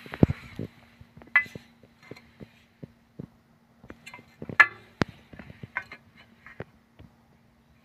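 Irregular light clicks and clinks, a few with a short metallic ring, the loudest a little over halfway through, over a faint steady hum.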